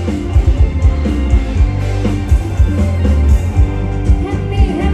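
Loud band music with no vocals: drum kit hits over heavy bass, with a guitar or keyboard line.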